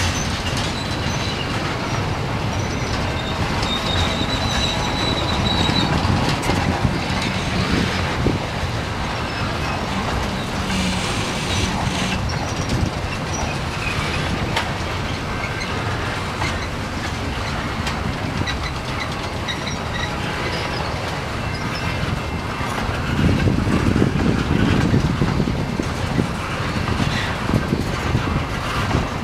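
Freight train of tank cars rolling past at a level crossing: a steady rumble and clatter of steel wheels on the rails. A faint high wheel squeal comes a few seconds in, and the rumble grows louder for a few seconds near the end.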